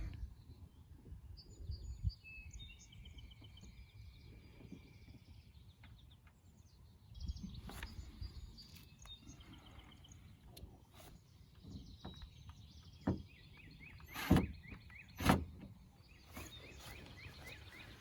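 Birds chirping and trilling over low outdoor background noise, with scattered small knocks and two sharp clicks about a second apart near the end.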